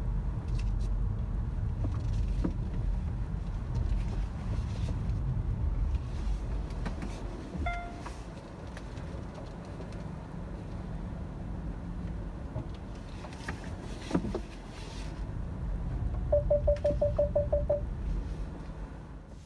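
Low rumble inside a Hyundai Ioniq electric car creeping over a paved filling-station forecourt. A single short beep comes about eight seconds in and a knock a few seconds later. Near the end a quick run of about eight beeps, roughly five a second, sounds as the car's nose closes on a wall: the parking-sensor warning.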